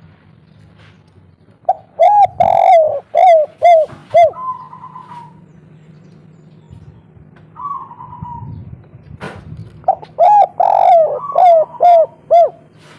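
Spotted dove cooing in the local 'kuk 3' style: two phrases, each a quick run of about six hollow, arching coo notes, the second phrase coming about eight seconds after the first.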